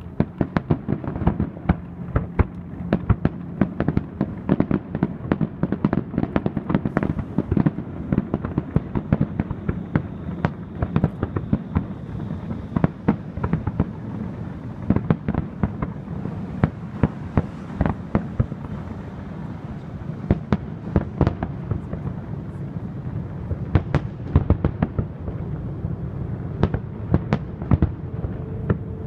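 Aerial fireworks shells bursting in rapid, near-continuous bangs over a steady low rumble.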